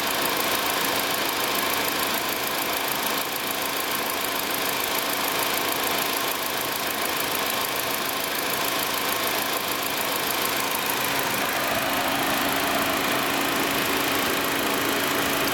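2016 Nissan Versa's 1.6-litre four-cylinder engine idling with its belt-driven air-conditioning compressor engaged. It gives a steady running sound with a constant hum, heard close to the compressor pulley. This is a healthy compressor on a nearly new car, operating as it should.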